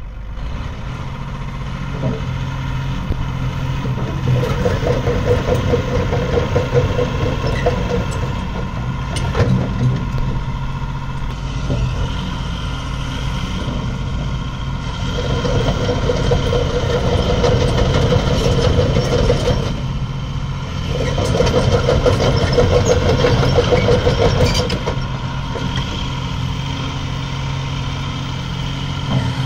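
Cat 349EL hydraulic excavator's diesel engine running steadily while the boom, stick and bucket are worked. The engine note grows louder and rougher in three spells of several seconds each, about 4, 15 and 21 seconds in, as the hydraulics take load.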